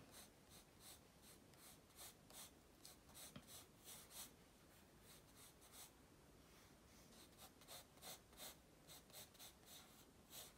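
Pencil scratching on paper in many short, quick sketching strokes, faint.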